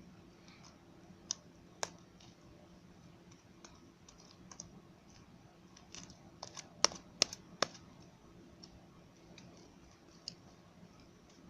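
Scattered sharp clicks and taps of small hard objects being handled. A quick run of three louder clicks comes about seven seconds in, over a faint steady hum.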